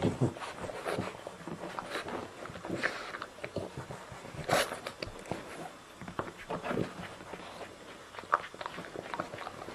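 French bulldog mother licking and nuzzling her newborn puppy: an irregular run of short licking sounds.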